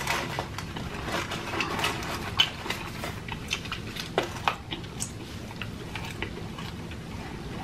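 Close-miked chewing of fried chicken: irregular wet mouth clicks and smacks scattered throughout.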